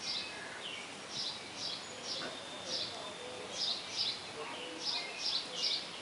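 Baby birds in a nest chirping: short, high peeps that drop in pitch, often in quick pairs, repeated about once a second, as the nestlings gape and beg.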